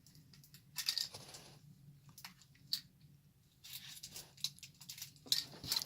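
Plastic packaging of an LOL Surprise toy ball being unwrapped and handled: intermittent rustling with light clicks of small plastic pieces, in a few short bursts.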